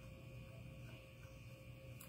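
Near silence: room tone with a steady, faint electrical hum.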